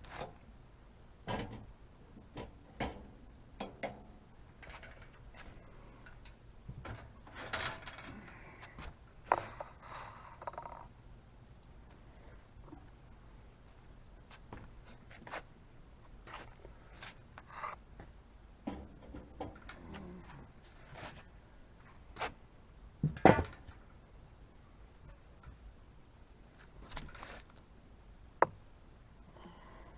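Steady high-pitched insect chorus, with scattered knocks and clatter of things being handled; the loudest is a pair of knocks about two-thirds of the way through, and a sharp click comes near the end.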